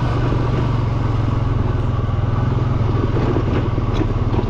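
ATV engine running steadily at a constant speed as the quad rides over a gravel trail, with light clattering from the stones and the loaded rack.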